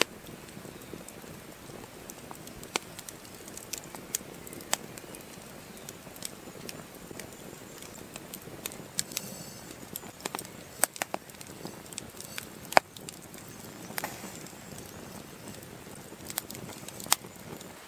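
Wood campfire crackling, with sharp, irregular pops and snaps over a faint steady background, one especially loud pop about two-thirds of the way through.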